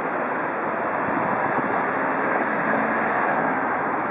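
Steady rushing travel noise from a moving vehicle: wind and road or engine rumble blended into an even hiss, with no distinct events.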